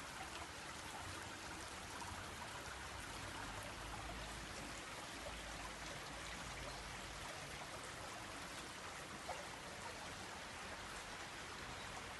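Faint, steady rushing of a cascade's flowing water.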